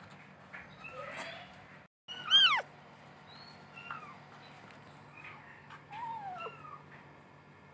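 Young kittens mewing repeatedly: short, high, thin calls that rise and fall in pitch, the loudest about two and a half seconds in.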